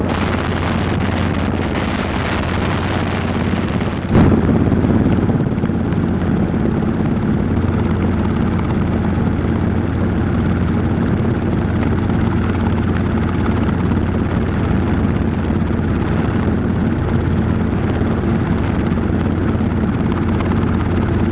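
Helicopter running steadily, heard from on board, a steady mechanical hum that gets a little louder about four seconds in.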